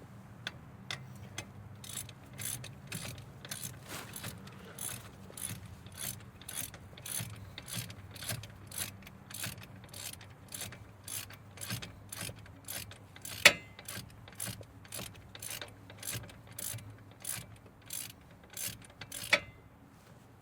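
Hand ratchet clicking steadily, about two to three clicks a second, as a bolt is turned during brake reassembly, with two sharper metal clacks, one past the middle and one near the end.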